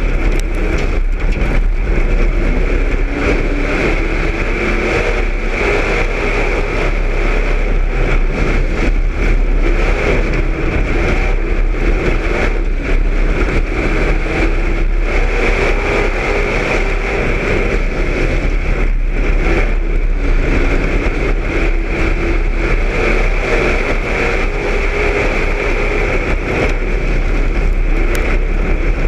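Street stock race car's engine running hard at speed on a dirt oval, heard from inside the car, a loud steady drone with brief dips now and then.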